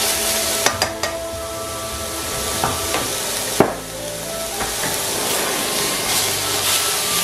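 Mixed vegetables (cauliflower, shredded slaw, green onion) sizzling in a hot wok as they are tossed with tongs. A few sharp clicks of the tongs against the pan come near the start, with a louder knock a little past halfway.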